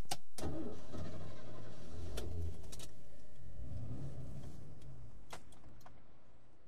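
Sound effect of a vehicle's low rumble, with a few sharp clicks, starting suddenly and fading out slowly over several seconds.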